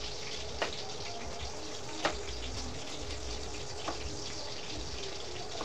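A kitchen knife clicks against a cutting board three times, about one and a half seconds apart, as food is sliced by hand. A steady hiss runs underneath.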